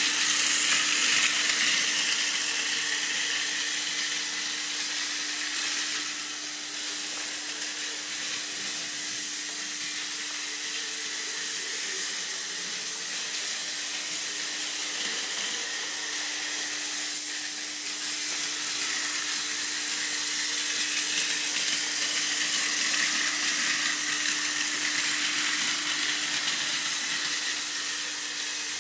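Plarail toy train of the E653 series whirring along plastic track, its small battery motor and gears giving a steady high whir over a constant low hum. It is louder at the start, dips in the middle and swells again later on.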